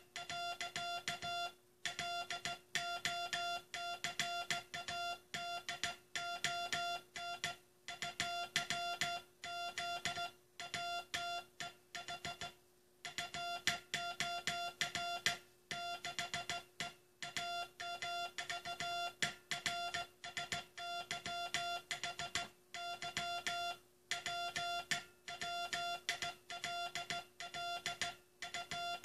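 Morse code (CW) tone keyed on and off in short dits and longer dahs, letters and words spaced by gaps, over a faint steady hum.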